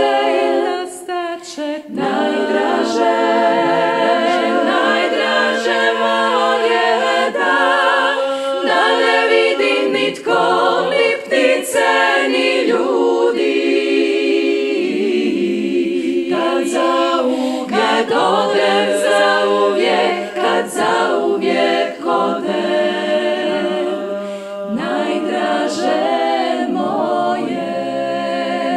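Women's klapa, a Croatian a cappella vocal ensemble, singing in close multi-part harmony, the sustained voices wavering with vibrato.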